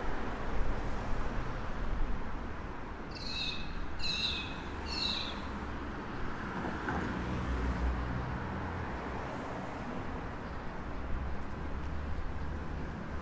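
Steady city street traffic with a low engine rumble throughout. A bird gives three short high calls about a second apart, starting a little after three seconds in.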